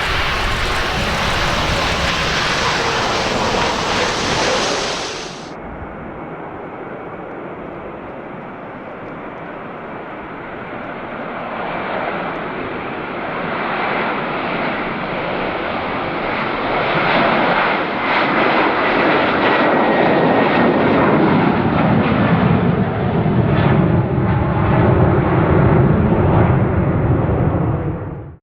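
Airliner engine noise, cut off abruptly about five seconds in. Then another airliner is heard, its engines growing louder as it approaches and passing with a falling pitch, until the sound cuts off just before the end.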